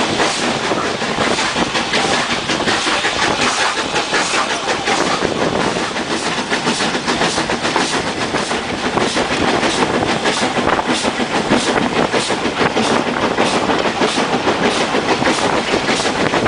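Steam train running along the line, a loud rushing noise with a steady, regular beat.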